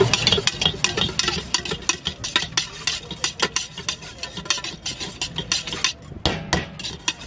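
Stainless steel spoon stirring a dry puffed-rice snack mix in a steel bowl, the spoon clinking and scraping against the bowl in quick, irregular strokes.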